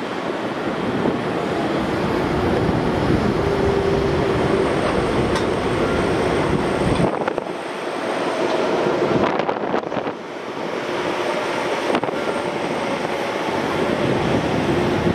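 Airbus A350 airliner taxiing on jet engine idle power: a steady rushing rumble with faint steady tones over it, dipping briefly twice.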